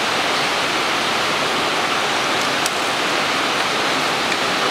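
Steady, even hiss with a single faint tick about two and a half seconds in.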